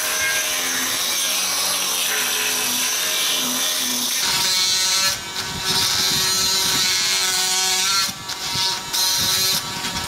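Handheld power tools cutting into a laminated timber boat stem, hogging out wood for the rabbet: a steady running cut, then from about four seconds a different tool with a pitched whine that stops and restarts a few times.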